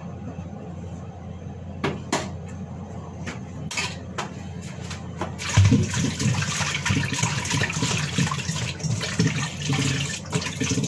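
A kitchen sink tap turns on a little past halfway and water runs and splashes into the sink. Before that come a few light clicks and knocks.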